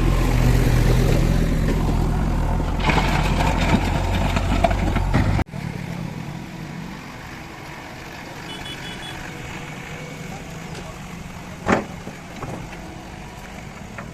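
Backhoe loader's diesel engine running with a heavy low rumble, which cuts off abruptly about five seconds in. A quieter background follows, with one sharp knock about three quarters of the way through.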